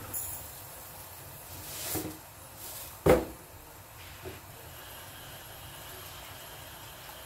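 Kitchen work over a low, steady hiss of food frying in covered pans, with a brief rustle near two seconds and one sharp knock, about three seconds in, of something set down on the counter.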